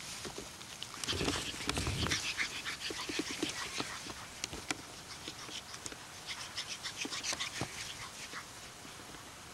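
A pug puppy and a Labrador retriever at play in the grass: dog breathing and grunting sounds, loudest about one to two seconds in, over a run of rustling and crackling.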